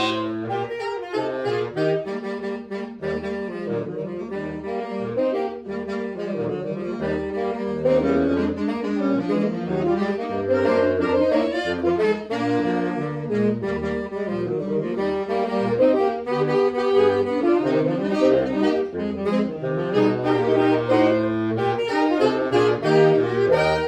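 Saxophone quartet playing together, several saxophone lines moving in harmony, until the music stops cleanly on the final note at the end of the piece.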